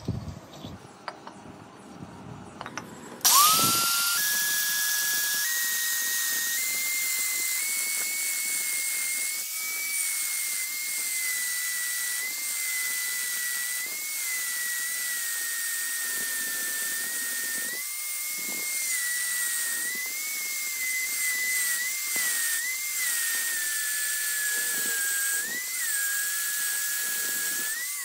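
Power tool with a thin cut-off disc cutting into a two-stroke motorcycle cylinder to open an extra intake port. It starts suddenly about three seconds in with a rising high whine, then runs steadily, the pitch wavering and dipping as the disc bites, and stops at the very end. Before it starts there are a few light clinks as the cylinder is handled.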